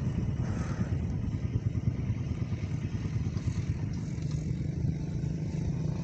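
Motorcycle engine running with a steady low rumble.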